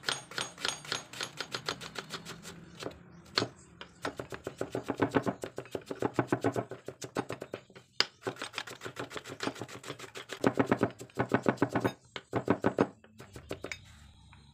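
Kitchen knife chopping onion on a wooden chopping board: runs of quick, even knocks, several a second, broken by a few brief pauses.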